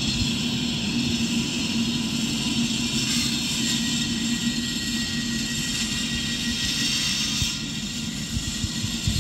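Belgian NMBS AM96 electric multiple unit pulling out and running past: a steady low rumble and hum with hiss from the wheels and rails, and a faint whine in the middle.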